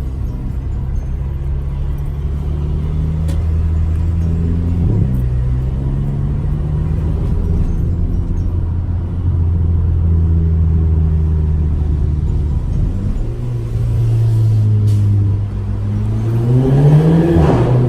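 Audi A3's turbocharged four-cylinder TFSI engine under way, running through a 2.5-inch straight pipe from the O2 sensor back with the resonator cut out: a steady deep drone that steps in pitch a couple of times, then rises as the engine revs near the end and drops suddenly at a gear change.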